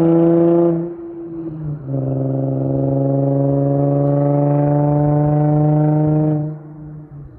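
Infiniti G35's 3.5-litre VQ V6 exhaust with test pipes in place of the catalytic converters. It is revved and held steady, let off just under a second in, then revved again and held for about four seconds with its pitch slowly climbing, dropping back near the end.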